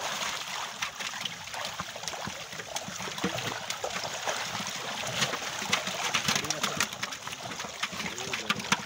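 Many fish thrashing in the shallow water of a net that has been drawn in, making a continuous patter of small splashes.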